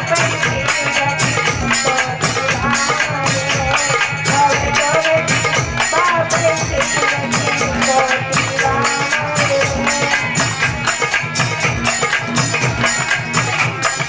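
Indian folk devotional music: a fast, steady beat of hand drum and jingling percussion under a wavering melody line.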